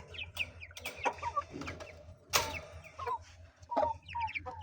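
Chickens clucking with short high cheeps from young chicks, in scattered calls, and a single sharp knock about halfway through.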